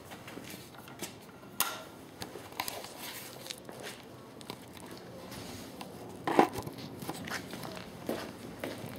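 Irregular clicks and clunks from handling a Kawasaki KE250 dirt bike while trying to start it, with the loudest knock about six seconds in; the engine does not run.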